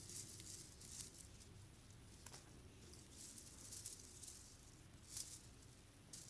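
Faint crinkly rustling from a cat wand toy's shiny foil ribbons being waved, in short bursts every second or so.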